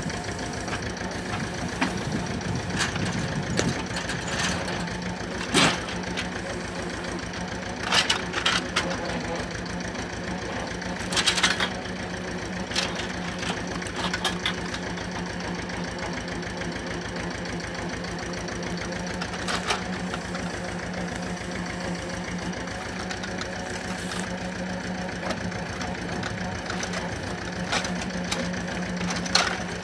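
Homemade forestry tractor's diesel engine running steadily, powering a hydraulic log-loading crane. Several short knocks and clunks of logs and the grapple landing on the trailer's load stand out, the loudest about 5, 8 and 11 seconds in.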